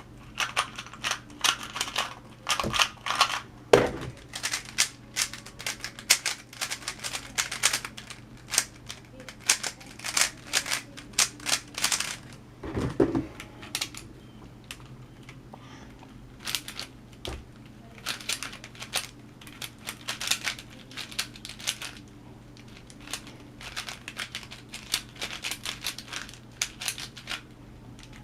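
Plastic Rubik's cubes being turned by hand at speed: rapid runs of sharp clicking and clacking as the layers snap round, broken by short pauses. A couple of heavier knocks sound about four seconds in and again near thirteen seconds.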